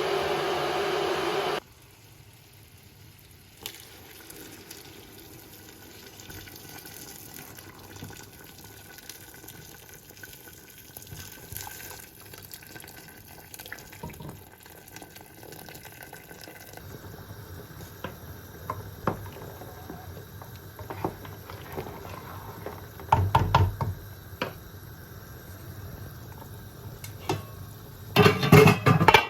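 Water and liquid sounds in a kitchen while goat trotter curry is being cooked: a faint steady wash of liquid with scattered small clicks and clatter, and louder knocks twice near the end. A short burst of louder background sound cuts off suddenly just after the start.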